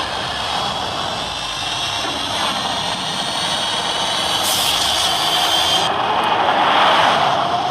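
Rimac Nevera electric hypercar driving at speed: a high-pitched electric motor whine over rushing air and tyre noise, getting louder toward the end.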